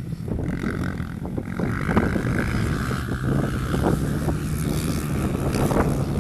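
Single-cylinder four-stroke dirt bike engine running at a steady speed.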